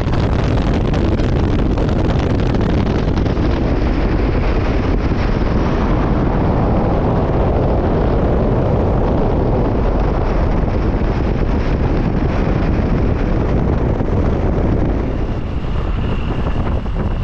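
Loud steady wind buffeting the microphone over the rumble of a moving vehicle. It eases slightly near the end, and a faint thin whine appears.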